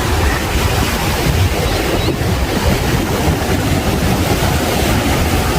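Surf from strong sea waves washing onto the beach, a steady rushing noise, with wind buffeting the microphone in a low rumble.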